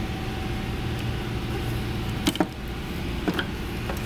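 Gloved hands handling a plastic coolant expansion tank in a car's engine bay: three short clicks or knocks, the sharpest about two seconds in, over a steady low hum.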